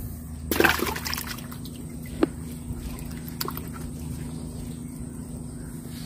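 Water splashing and trickling as a wet fishing net is handled over a bucket of water holding fish. A short splash comes about half a second in, and a couple of sharp clicks follow. A steady low hum runs underneath.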